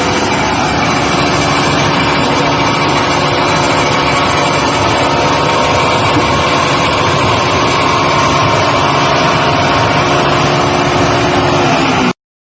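Corn grits and corn flour grinding machine running: a loud, steady mechanical noise with a constant hum. It cuts off abruptly near the end.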